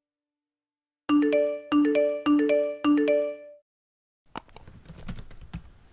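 An electronic chime plays a short bright phrase of two or three notes four times over in quick succession, like a phone ringtone. About a second after it stops, a quick run of computer keyboard key clicks follows, as in typing.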